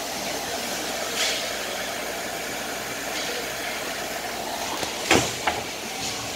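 Ice hockey rink ambience with skates and sticks on the ice. About five seconds in there is a loud bang as players hit the boards and glass right beside the camera, followed by a smaller knock.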